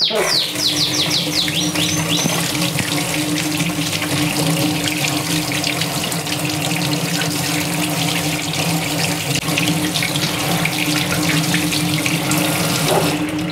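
Kitchen tap running, water splashing onto a piece of salt-cured pork and hands in a stainless steel sink as the dry cure is rinsed off. A few quick high squeaks in the first two seconds, and a steady low hum underneath.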